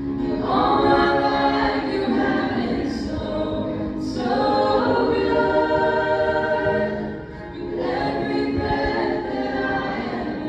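Church worship team singing a worship song, several voices together over the band, in three long phrases with a short break just after seven seconds.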